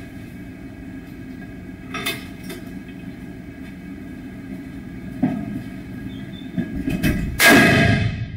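A single loud shot from the test barrel striking the Kevlar PASGT helmet shell, about seven seconds in, after a couple of lighter clicks over a steady low hum.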